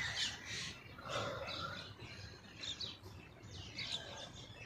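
Small birds chirping in short, scattered calls.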